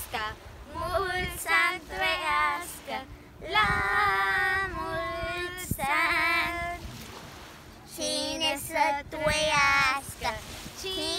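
Children singing a Romanian birthday greeting song in short phrases with long held notes, breaking off briefly about seven seconds in before starting again.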